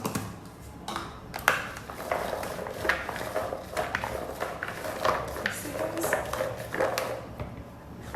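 Kitchen handling noise: irregular clicks, taps and scrapes of utensils and containers as food is seasoned and handled.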